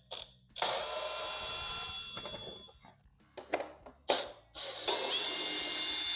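Handheld electric power tool running in two bursts, each a steady whine of about two seconds, with a few knocks between, as it backs out fairing fasteners.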